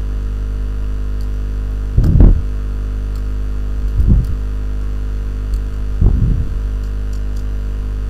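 Steady electrical mains hum in the recording, with three brief low sounds about two seconds apart.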